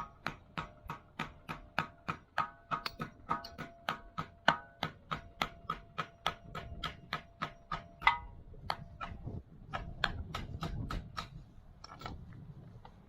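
Rapid metal tapping, about three sharp strikes a second, each with a short ringing note, slowing and stopping about eleven seconds in: metal tools worked against a stuck oil filter to break it loose.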